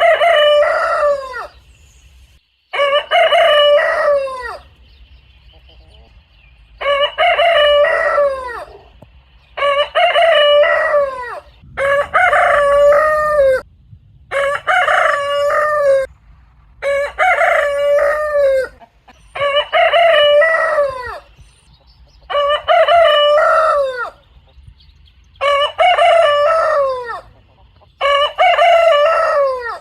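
Rooster crowing, cock-a-doodle-doo, over and over: about eleven loud crows, one every two to three seconds, each dropping in pitch at its end.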